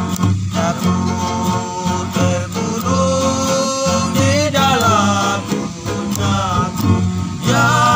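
A small acoustic string band playing: two acoustic guitars strummed, a small ukulele and a large wooden bass plucked, with several men singing together in harmony, the voices clearest from about three seconds in.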